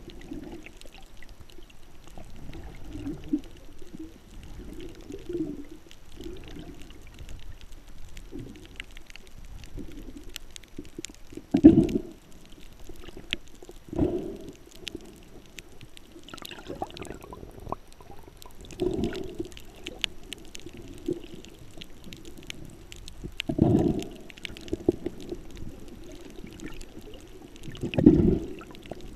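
Scuba diver's exhaled bubbles from the regulator, heard underwater: a rush of bubbles five times, every few seconds, over faint clicking.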